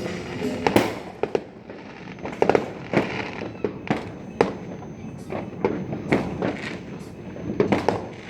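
Fireworks going off in an irregular series of sharp bangs and cracks, with a quick cluster of bangs near the end.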